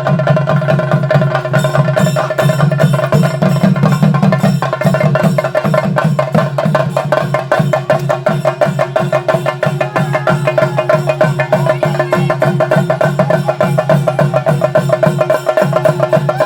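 Theyyam ritual percussion: chenda drums beaten in a fast, steady rhythm, with ringing pitched tones under the dense strokes.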